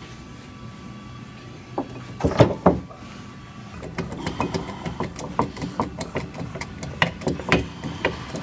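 Metal knocks and clanks from a hydraulic ram-driven frame rail repair tool working inside a damaged steel box frame rail: a few loud knocks about two seconds in, then a run of quick clicks and creaks, several a second, as the tool bears on the crumpled rail.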